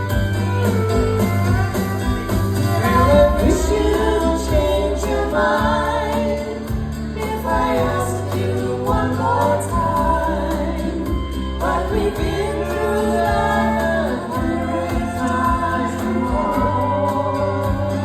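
Music: singing over a guitar-led backing, with long, wavering sung notes.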